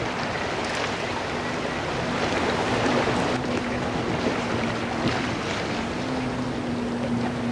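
Sea washing against the rocks of a breakwall, with wind on the microphone. A steady low motor hum comes in right at the start.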